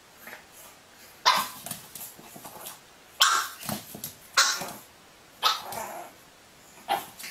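A dog barking: five sharp barks, spaced a second or so apart.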